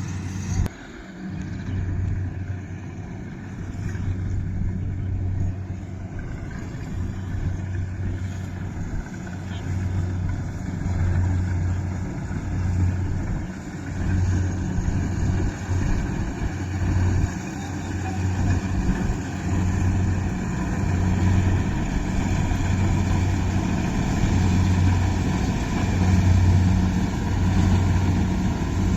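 Kubota rice combine harvester running steadily under load as it cuts rice, a continuous low engine drone that swells and eases slightly. There is a brief drop just after the start.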